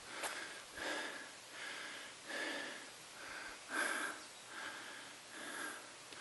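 Rhythmic sounds of a hiker on the move, hard breathing and footfalls, about three short pulses every two seconds, one louder than the rest near the middle.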